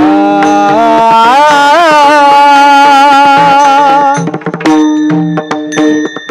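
Marathi devotional bhajan: a man's voice holds a long, ornamented sung note over a steady drone, with brass taal hand cymbals struck in rhythm and drum strokes. Near the end the cymbals ring on as the voice drops out.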